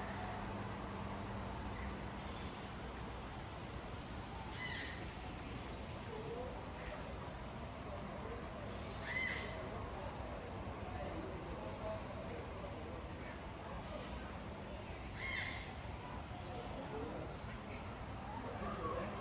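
Steady high-pitched chorus of insects droning, with a short chirp breaking in about every five seconds.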